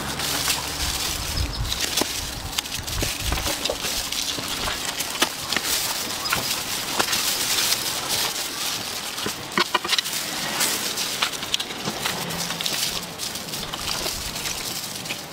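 Crackling and crunching of the charred, crisp skin of a charcoal-roasted whole crocodile as gloved hands tear it open and a knife cuts into it, with many small sharp snaps.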